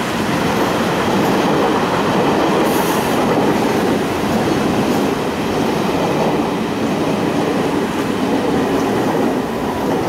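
London Underground Metropolitan line train running past on curved track, its wheels on the rails making a loud, steady noise.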